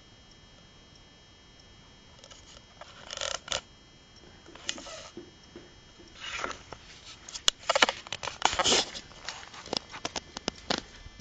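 Small terriers at play: scuffling and rustling noises with many sharp clicks and taps, starting about two seconds in and getting busier in the second half.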